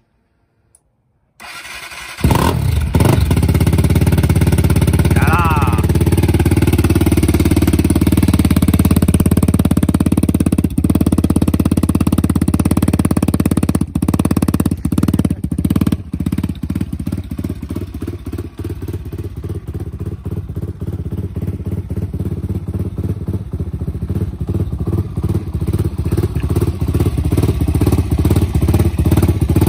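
2008 Husqvarna SMR 450's single-cylinder four-stroke engine firing up on a cold start with the choke set, about two seconds in, then idling fast and steadily through its Akrapovič exhaust. The idle eases a little in the middle and picks up again near the end.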